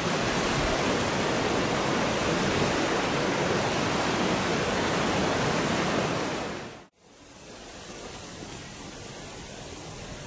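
Steady rushing outdoor noise, like wind or running water, that cuts off sharply about seven seconds in and gives way to a quieter, similar hiss.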